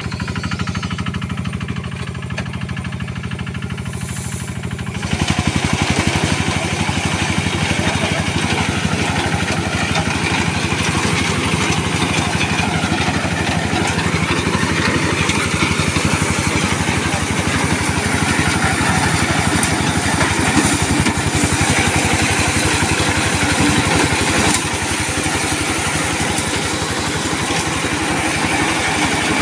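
Quick QH-11 Series rice combine harvester running steadily; about five seconds in its sound gets louder and fuller, with more hiss and rattle over the engine note.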